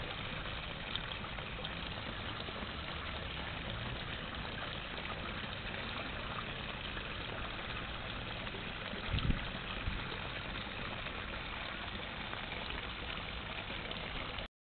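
Steady rush of running water at a koi pond, with a couple of low thumps about nine seconds in.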